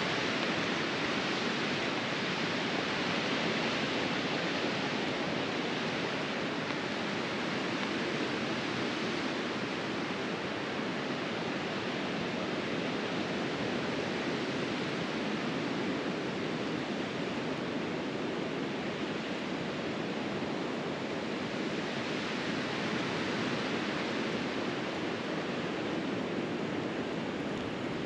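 Steady rushing of blizzard wind, rising and falling only slightly.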